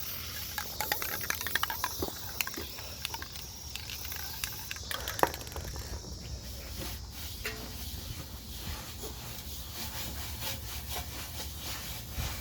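Small clicks and knocks of parts being handled on a metal street light fixture, dense for the first few seconds and then sparse, over a steady low rumble.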